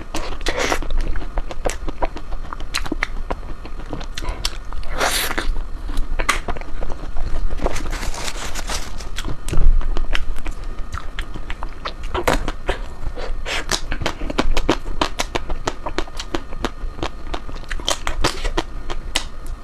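A person eating ice cream: a long run of irregular wet mouth clicks and smacks from biting and chewing, with a few longer slurping bits.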